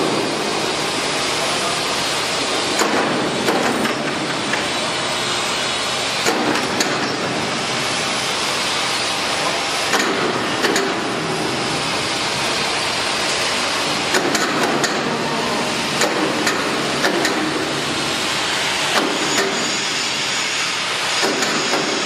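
Machinery running steadily, with irregular knocks and clanks every few seconds.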